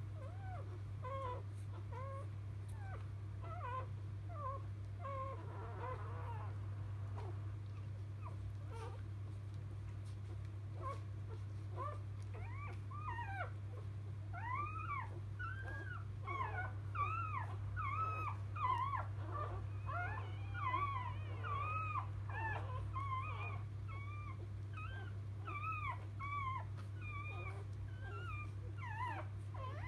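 Newborn Labrador retriever puppy squeaking and whimpering in rapid high little cries, each rising and falling in pitch, growing busier and higher about twelve seconds in, over a steady low hum.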